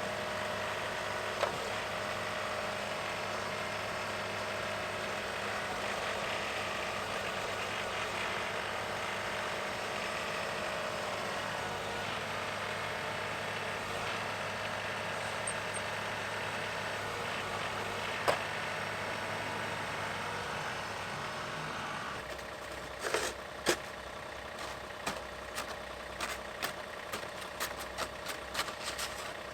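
Engine idling steadily. About two-thirds of the way in the engine note drops lower, and a run of irregular knocks and clicks follows.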